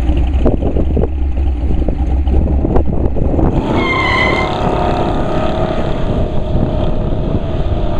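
A street rod's 351 Windsor V8 running loud with a deep rumble, then rising in pitch as the car accelerates hard, with a brief high tyre squeal about halfway through.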